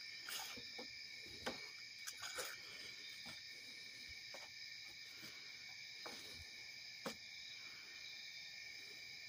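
Faint, steady high-pitched chorus of night insects such as crickets. A few sharp knocks and clicks break through it, the loudest about a second and a half in and again about seven seconds in.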